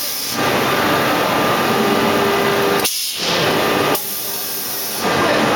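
CNC wood lathe turning a wooden baluster or leg blank: a loud, steady rushing noise of the machine and its cutting. It drops off briefly near the start, again about three seconds in, and for about a second near the end.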